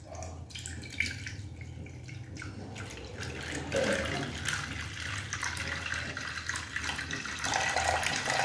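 Milk poured in a steady stream from a plastic bottle into a metal kadhai, splashing onto the pool already in the pan, growing a little louder as it goes on.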